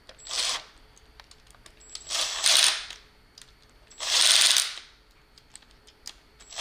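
Cordless impact driver with a Phillips bit run in three short bursts, rattling as it drives screws.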